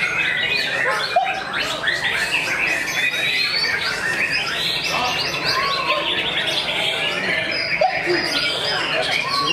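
White-rumped shama singing amid a dense chorus of other songbirds, many overlapping whistles and trills at once with no break.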